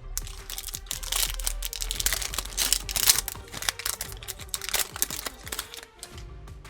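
Plastic wrapper of a trading-card pack being torn open and crinkled, a dense crackle that lasts about five seconds and dies down near the end.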